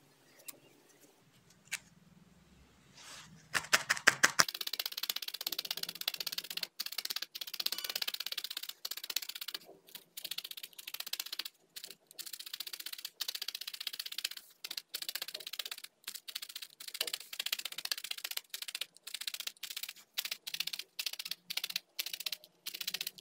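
A felting needle stabbing rapidly and repeatedly through wool into a foam pad, a fast run of pokes broken by brief pauses, starting about four seconds in.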